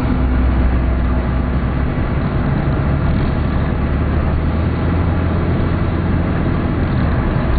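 Steady drone of a vehicle on the road: a low engine hum under even road noise.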